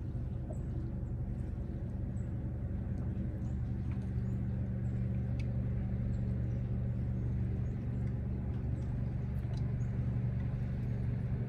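A boat motor running with a steady low hum that grows a little louder about three and a half seconds in.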